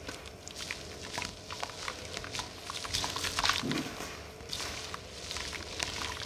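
Soft grey dust chunks being squeezed and crumbled by hand over a bowl of water: irregular gritty crackling and crunching, with crumbs and powder pattering and splashing into the water.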